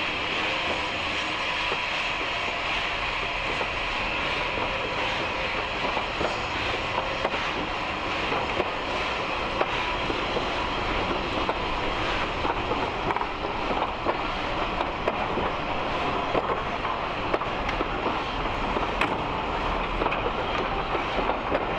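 Passenger coaches of a steam-hauled train rolling slowly past on jointed track, a steady rumble with irregular clicks of the wheels over rail joints and points. The clicks come more often toward the end.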